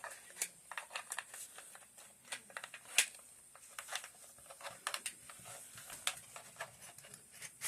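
Metal parts of a PSA AK-47 rifle being handled and fitted during reassembly: irregular small metal clicks and light rattles, the sharpest about three seconds in.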